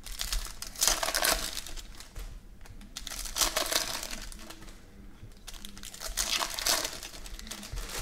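Foil wrappers of 2017 Panini Prizm football card packs crinkling in several bursts as the packs are handled, opened and the cards pulled out.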